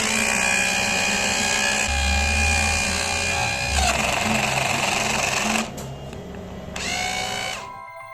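A small electric motor running with the whir and rattle of its gears and a steady high whine. It drops in level about five and a half seconds in, then briefly spins up again with a rising whine.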